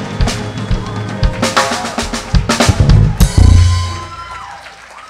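Live band's drum kit playing snare and bass drum hits that build into a dense run, ending in a last loud hit with a deep low note about three and a half seconds in that then fades away: the band closing out the song.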